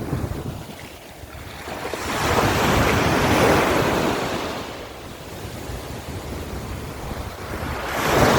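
Sea surf: waves breaking and washing in, one swell of noise building about two seconds in and fading, a second breaking near the end. Wind rumbles on the microphone underneath.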